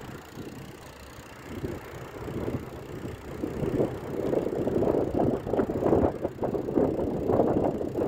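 Wind buffeting a handheld phone's microphone while riding a bicycle, a gusty rumble that grows louder about halfway through.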